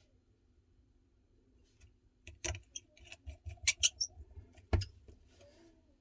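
Scattered sharp little clicks and taps of small metal tools and tiny screws being handled during smartphone reassembly, in the second half.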